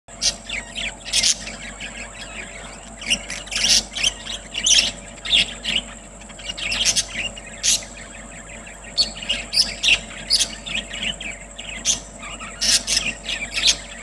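A flock of budgerigars chirping and chattering, with many short, sharp calls coming irregularly and overlapping. A faint steady high-pitched tone runs underneath.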